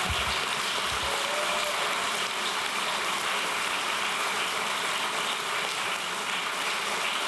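Audience applauding, a dense steady clapping that holds at an even level throughout.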